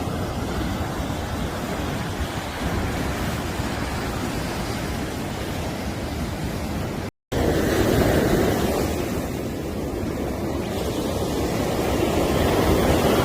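Sea surf washing onto a beach, a steady rush of breaking waves that swells louder a little after the middle and again near the end. The sound cuts out completely for a split second about seven seconds in.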